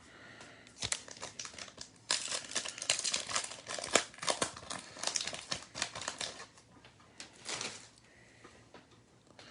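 Crinkling and crackling of a foil trading-card pack wrapper being handled and torn open, in a dense spell lasting a few seconds, with a shorter crinkle near the end.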